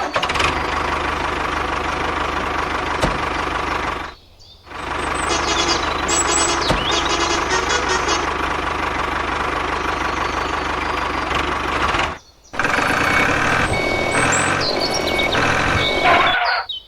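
Small motor of a DIY mini tractor model running steadily, cutting out briefly about four seconds in and again about twelve seconds in.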